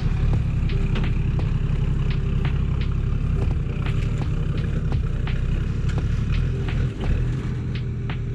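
A Toyota Land Cruiser 70 series engine running steadily at low revs on a wet track. Sharp clicks and knocks come about two a second over it.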